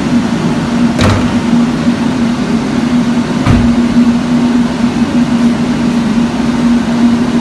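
Volkswagen Golf Mk7 R's turbocharged 2.0-litre four-cylinder engine idling with the bonnet open, a steady whirring hum with one constant tone. Two light knocks come about one second and three and a half seconds in.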